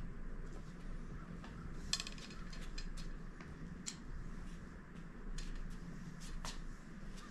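Scattered light metallic clicks and clinks of handling, a cluster of them about two seconds in, over a low steady hum.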